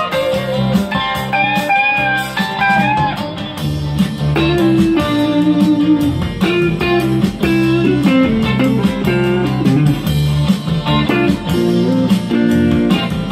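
Fender Stratocaster electric guitar playing a bluesy melodic lead line with bent notes in the first few seconds, over steady low bass notes.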